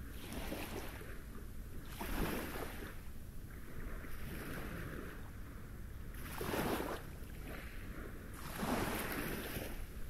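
Small sea waves lapping onto a pebble beach, in a binaural recording: three separate washes of water, about two seconds in, at about six and a half seconds and near the end, each a brief rush that swells and fades.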